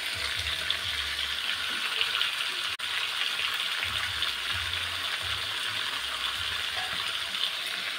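Patin catfish pieces and sautéed spices sizzling in hot oil in a wok, a steady crackling hiss.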